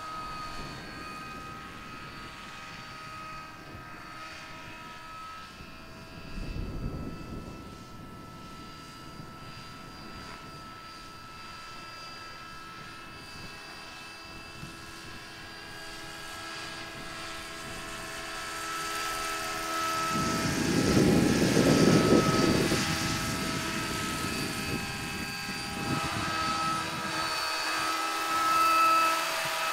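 Radio-controlled scale model Westland Lynx helicopter in flight: a steady high whine over the chop of its rotors. It grows louder in the last third as the helicopter flies lower and closer.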